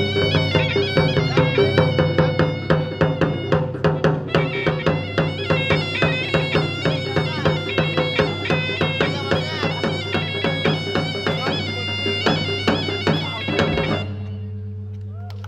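Makassarese gendang drums beaten in a fast, dense rhythm under a shrill, wavering melody from a double-reed pipe (pui-pui). The music stops abruptly about fourteen seconds in, leaving only a low hum.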